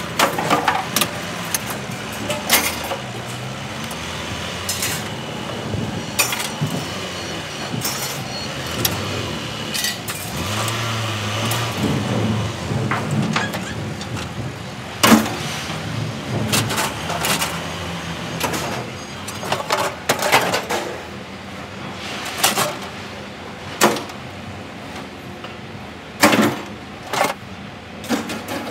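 Scrap metal being unloaded by hand from a ute tray: irregular clanks and knocks as pieces are pulled out and tossed onto the ground. A vehicle engine runs in the background, louder about halfway through.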